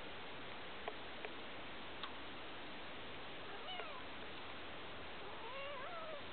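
Newborn kittens mewing faintly over a steady hiss: a short, thin, wavering mew a little past halfway, then a longer wavering mew near the end. A few faint clicks come in the first two seconds.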